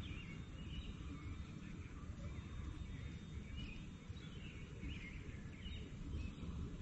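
Outdoor ambience: a steady low rumble of light wind on the microphone, with a bird chirping short notes about once a second.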